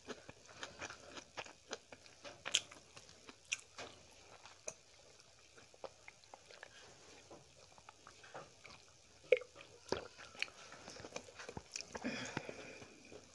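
Close-up eating sounds of a person chewing food she eats by hand, with irregular sharp wet clicks from the mouth.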